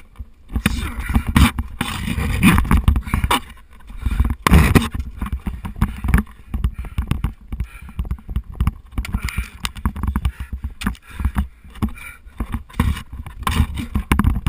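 Ice climber's gear and clothing close to a head-mounted camera: irregular scraping, knocking and rustling as ice tools, crampons and rope work against the ice.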